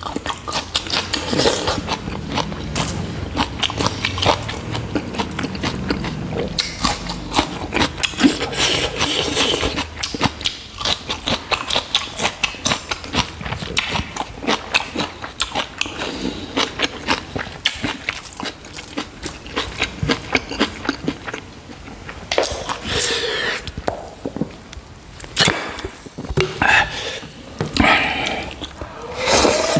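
Close-up chewing and mouth sounds of a man eating rice and pork curry with his hand, biting into a raw green chilli: a steady run of small wet smacks and clicks.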